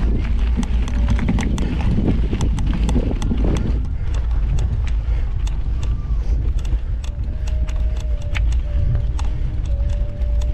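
Mountain bike ridden over a rough trail: steady wind rumble on the microphone with many quick, irregular clicks and rattles from the bike.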